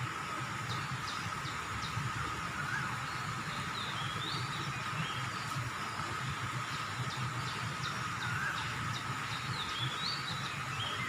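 A bird singing a phrase of short high notes followed by swooping whistles, heard twice, over a steady thin tone and a low rumble.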